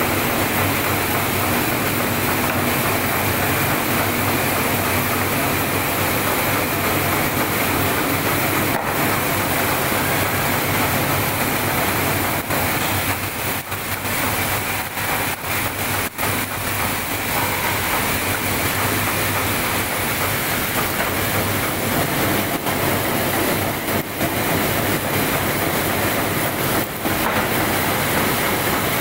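Automatic 08B roller-chain production line running: a steady, dense metallic clatter of the machines and of steel roller chain running through them.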